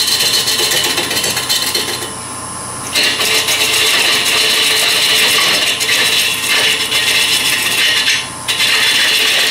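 Bradford pear bowl blank spinning on a wood lathe while a bowl scraper cuts the inside, a steady rasping scrape of wood over the lathe's running tone. The cutting stops for about a second around two seconds in and again briefly near the end.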